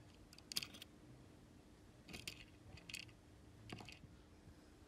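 Faint clicks and taps of metal tweezers against small parts inside an opened iPhone's housing, four or so short ticks spread over a few seconds, over a faint steady hum.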